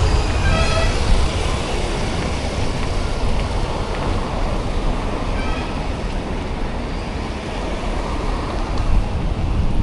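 Steady low wind rumble and road noise while riding a bicycle along a road with traffic. A short pitched sound cuts through about half a second in and again around five and a half seconds.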